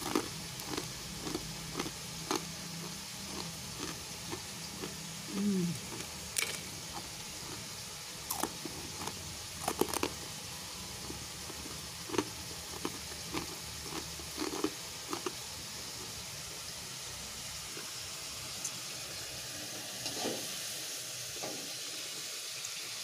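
Crispy battered fried tempeh (tempe kriuk) crunching as it is broken and eaten: scattered, irregular crunches and crackles over a faint steady hiss.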